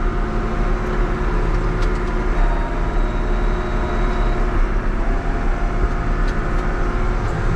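John Deere 7200 tractor's diesel engine running steadily at field speed, heard from inside the cab.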